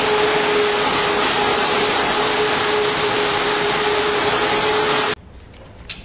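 Large hexagonal drum-type drying polisher for wooden spoon blanks running: a loud, steady rushing noise with an even hum through it. It cuts off suddenly about five seconds in, leaving a much quieter room with a few faint ticks.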